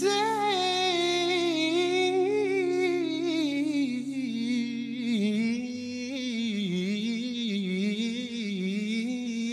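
Male singer holding a long high note with vibrato, then sliding down about four seconds in into a wavering run of lower notes. Underneath, an electric guitar chord rings on and dies away about halfway through.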